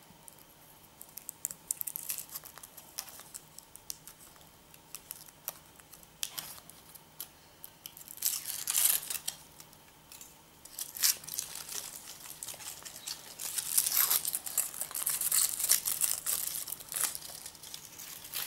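Foil wrapper being peeled by hand off a Kinder Surprise chocolate egg, crinkling and tearing in uneven bursts, loudest about halfway through and again toward the end.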